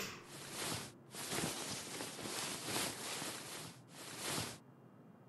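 A rustling, shuffling noise with a short break about a second in, stopping about four and a half seconds in.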